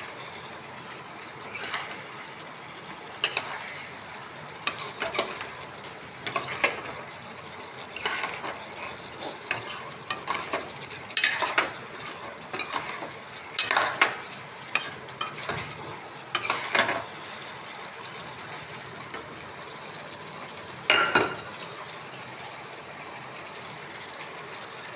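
Masala soya chap frying in a pan with a steady sizzle, stirred with a spatula that scrapes and clinks against the pan at irregular intervals, then mostly left to sizzle for the last few seconds apart from one more scrape.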